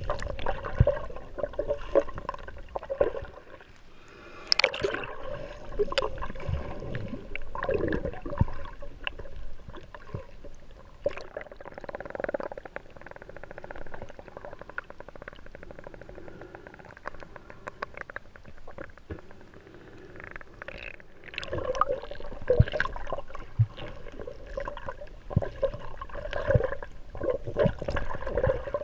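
Muffled underwater sound picked up by a submerged camera: water gurgling and sloshing with many scattered clicks, quieter for a few seconds in the middle and busier again near the end.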